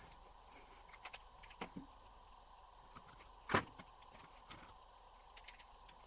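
Faint small clicks and taps of paint pens and paper being handled on a work table, with one sharper click about three and a half seconds in, over a faint steady hum.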